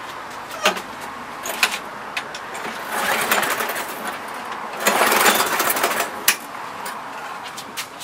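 Lawn mower's small engine being pull-started: two cranking pulls about two seconds apart, with clicks and knocks between them. The engine does not settle into running.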